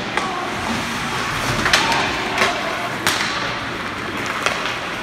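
Ice hockey play in an arena: a few sharp clacks of sticks, puck and boards over steady rink noise and faint voices.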